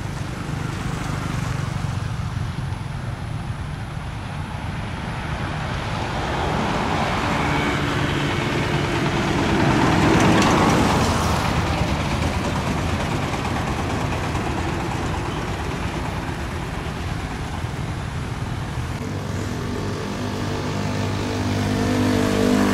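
Road traffic: a steady low engine rumble, with a vehicle passing that swells up about six seconds in, is loudest around the middle and fades away, and traffic building again near the end.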